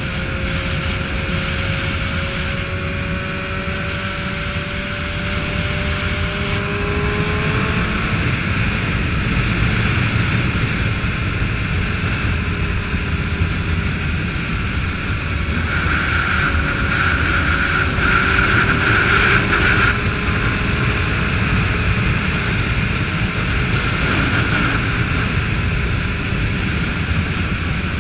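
Motorcycle running at steady road speed, with heavy wind rush over the microphone; the engine note climbs slowly over the first several seconds.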